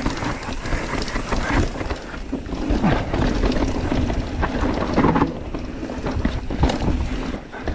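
Mountain bike descending a rough, rooty trail: wind rushing over the microphone, with the bike clattering and knocking repeatedly as the tyres hit roots.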